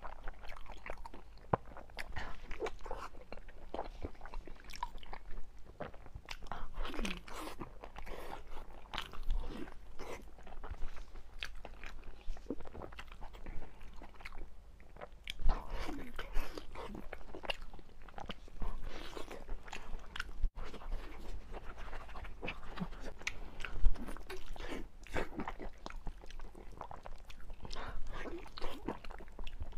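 Close-up chewing and biting on a braised beef knee bone with its tendon and gristle, a quick irregular run of bites and chews with a few louder bites, played back at double speed.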